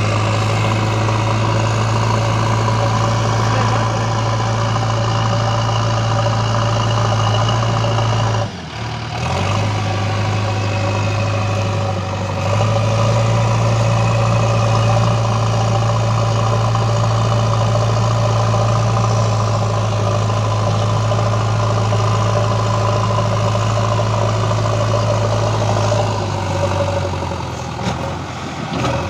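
Diesel engine of a JCB 3DX backhoe loader running steadily with a deep hum, dipping briefly about eight and a half seconds in.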